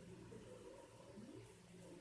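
Near silence: faint room tone with a low background murmur and two faint ticks near the end.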